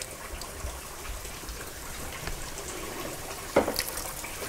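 Coconut milk trickling and dripping as grated coconut is squeezed by hand, with one sharp knock about three and a half seconds in.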